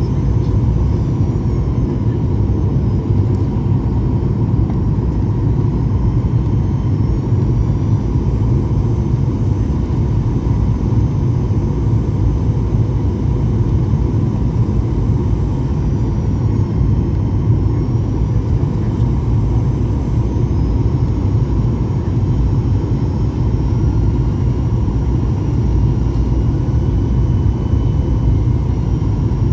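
Boeing 737-800's CFM56 jet engines and airflow, a steady low rumble with faint high whines that shift slightly in pitch.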